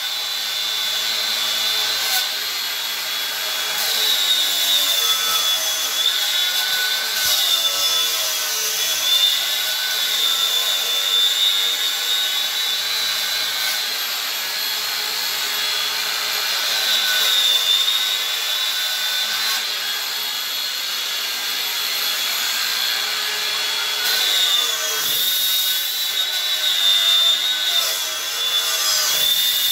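Cordless angle grinder fitted with a chainsaw carving disc, running and cutting grooves into a block of ash wood. Its steady high whine sags in pitch several times as the disc bites into the wood and picks up again.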